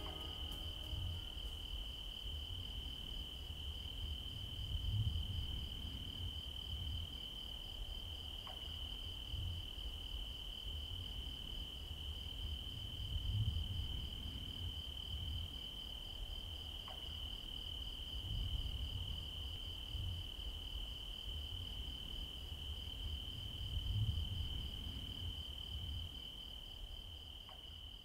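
Insects trilling, a single steady high-pitched note that does not let up. Under it is a low rumble that swells and fades every few seconds.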